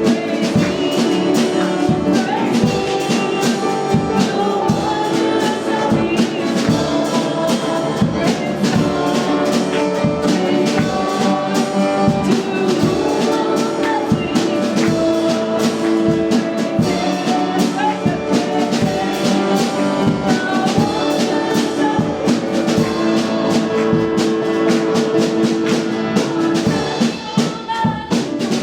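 Worship band music with brass over a steady beat.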